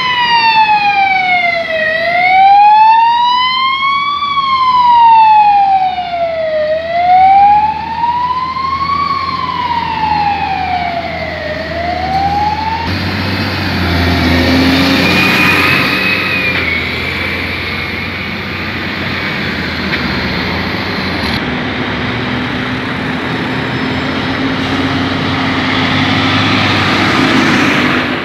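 A siren wailing slowly up and down, about one rise and fall every five seconds, stops about 13 seconds in. After it comes the steady engine noise of farm tractors and other vehicles driving past.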